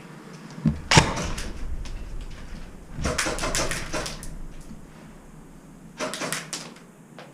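Airsoft guns firing rapid semi-automatic shots, several sharp clicks a second, in three strings: just after a second in, around three to four seconds in, and around six seconds in.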